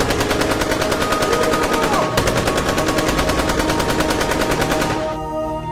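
Long bursts of automatic gunfire, rapid evenly spaced shots, breaking off briefly about two seconds in and stopping about five seconds in. Background music plays underneath and carries on after the firing ends.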